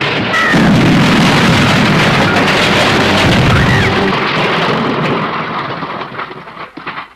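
A smash sound effect: a sudden, loud crash with a heavy rumble and breaking debris, thinning over the last couple of seconds into scattered crackles as it dies away.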